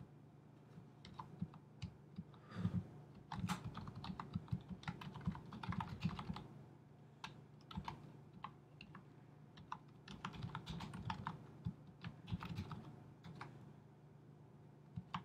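Typing on a computer keyboard: irregular runs of key clicks broken by short pauses.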